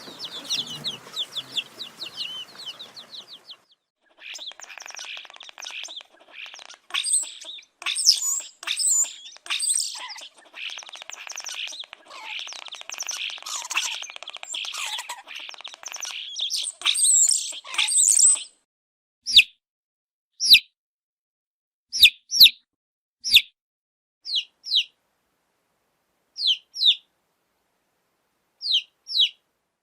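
Baby chicks peeping in high, short, repeated chirps. A dense chorus breaks off for a moment a few seconds in, resumes over a noisy background, and then, from about two-thirds of the way through, gives way to separate single or paired peeps with silence between them.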